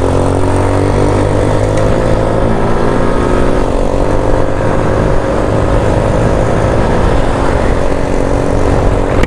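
Motorcycle engine running hard at road speed as the bike accelerates, a steady drone with wind rushing over the microphone.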